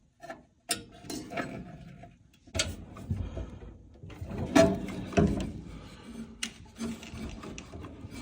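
Hands working on furnace parts while a cleaned flame sensor is put back: irregular rubbing and scraping with several sharp knocks and clicks.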